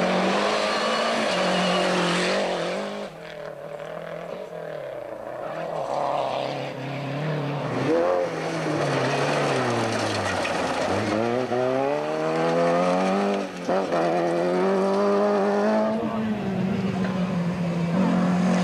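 Rally cars' engines revving hard as they pass one after another on a gravel stage. The engine pitch climbs and drops again and again with gear changes and lifts, with one deep drop followed by a steep climb through the revs near the middle.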